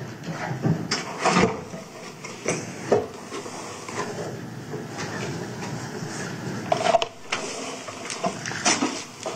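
Handling noise: scattered knocks, clicks and rustles as a Glock 19 pistol is packed back into its evidence box.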